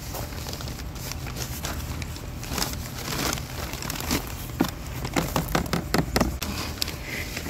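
A plastic potting-soil bag crinkling as soil is scooped from it with a clear plastic measuring cup and poured into a stacked plastic planter. A quick run of small taps and scrapes comes about two-thirds of the way through.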